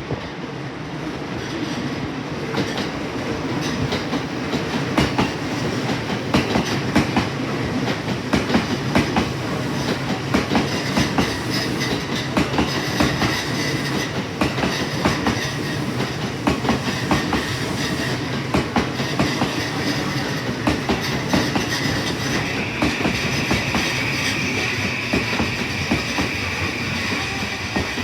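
A long freight train hauled by an electric locomotive running through the station, its wagon wheels clattering steadily over the rail joints. A high, steady wheel squeal joins about three-quarters of the way through.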